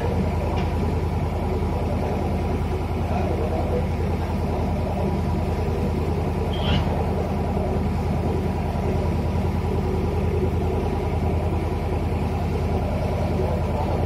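Boat engine running steadily at low speed, an even hum with no change in pitch. A brief high chirp sounds about seven seconds in.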